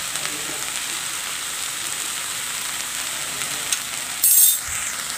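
Spring onion and coconut masala sizzling steadily in a nonstick frying pan, salt just sprinkled over it. A brief louder burst of noise comes a little after four seconds in.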